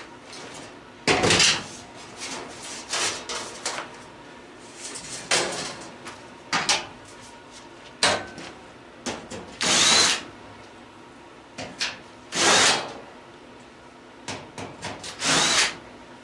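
Old gas stove being taken apart by hand: irregular scraping, rattling and knocking of its metal parts, with about five louder harsh bursts of roughly half a second each.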